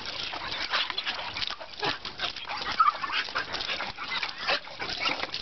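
Border collie mix dog making a string of short, excited whining noises.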